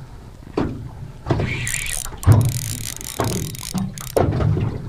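Spinning reel being wound in while a fish is played on a bent rod, its gears clicking, with a low knock about once a second.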